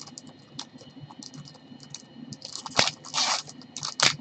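Hockey card packs and cards handled with gloved hands: light scratching and clicking, then louder crinkling swishes of wrapper and cards from about two and a half seconds in.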